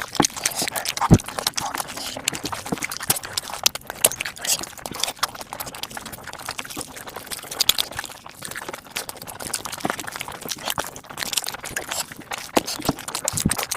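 Sped-up mukbang eating sounds: a dense, rapid run of crunching, smacking and clicking bites and chews.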